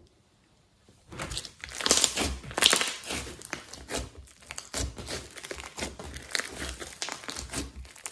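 Hands squeezing and kneading thick, speckled slime, giving a dense run of small wet clicks and crackles that start about a second in.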